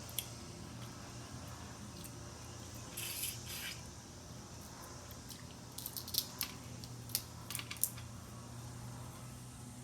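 Snow crab leg shells being cracked and picked at while eating, with a short crackle about three seconds in and a run of sharp clicks and snaps later on, over a faint low hum.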